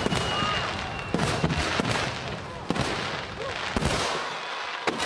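Aerial fireworks shells bursting in quick succession: a dense run of sharp bangs and crackling with a low rumble, thinning out about four seconds in.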